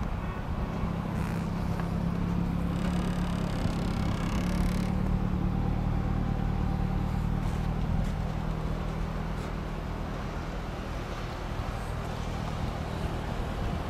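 Toyota Corolla's petrol engine idling steadily, heard from outside the car. A brief rushing noise rises and falls about three seconds in.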